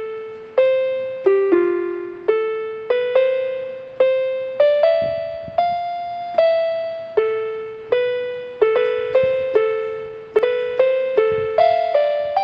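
Keyboard music: a slow melody of single notes, about two a second, each struck sharply and then fading.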